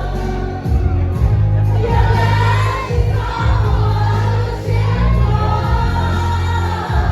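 Music with singing over a heavy bass line that changes notes about once a second.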